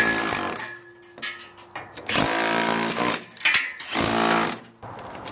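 Milwaukee dual-purpose hammer drill running in hammer-only (chisel) mode, its flat chisel bit chipping out brick and mortar. It runs in three bursts: a short one at the start, then two longer ones in the middle.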